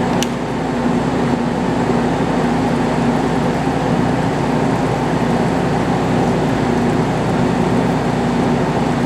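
Metal lathe running steadily while turning a sawmill mandrel's fast collar, taking a light cut. One short click sounds just after the start.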